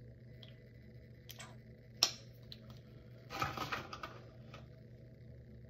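Handling noise: a few sharp clicks, the loudest about two seconds in, then a short rustle, as a plastic skincare tube is handled.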